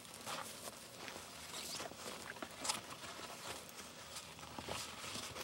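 Quiet rustling and scuffing from handling a soft collapsible turkey decoy and its stake, with a few short sharp clicks and scuffs on dry grass.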